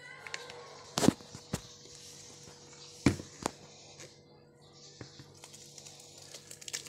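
A plastic blender jar being handled and set against a bucket, giving several sharp clunks and knocks, with a thick blended mix of greens pouring into a bucket of rice and bran.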